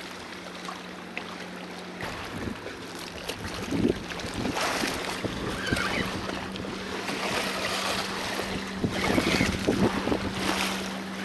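Wind buffeting the microphone in gusts, with choppy harbour water washing against the rocks, over a steady low drone.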